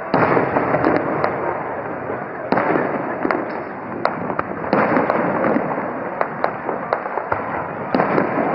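Aerial fireworks going off: a string of sharp bangs and crackles, with louder bursts every couple of seconds, over a continuous noisy background.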